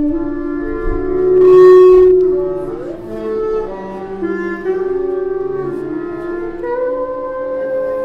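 Live improvised music: long, held pitched tones that step and slide between pitches and swell loudest about two seconds in, over lower held notes from a double bass.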